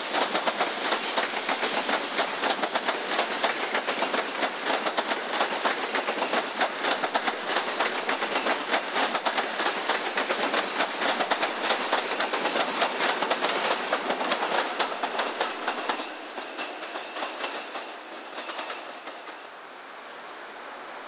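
InterCity 125 high-speed train's coaches passing at speed, wheels clattering rapidly over the rail joints and pointwork. The clatter weakens about sixteen seconds in and dies away.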